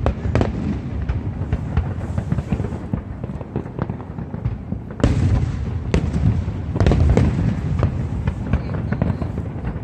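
Aerial fireworks display: a rapid string of booms and crackling bursts over a continuous low rumble, growing louder and denser about five seconds in.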